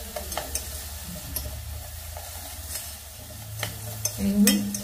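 Metal spoon stirring dry sugar in a stainless steel saucepan, scraping the bottom with a sharp clink against the pan about once a second. The sugar is being melted down into caramel.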